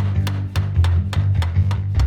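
Background hip-hop music with a steady beat and a deep bass line.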